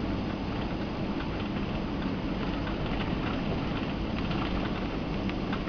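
Cabin noise inside a taxiing Boeing 767: a steady low engine rumble with many light ticks and rattles from the cabin as the airliner rolls over the taxiway.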